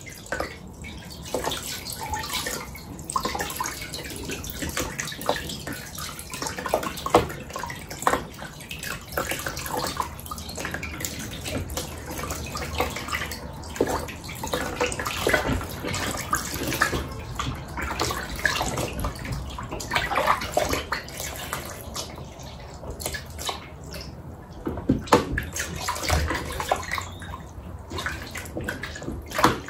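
Kitchen tap running into a plastic basin of water while pieces of catfish are rubbed and rinsed by hand under it, with irregular splashes and sloshing.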